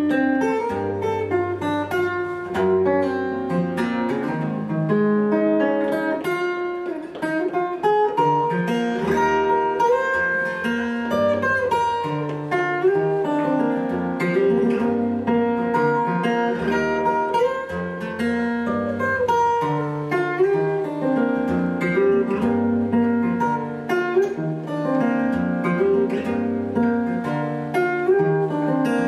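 Solo acoustic guitar played fingerstyle: a continuous run of plucked melody notes over a lower bass line.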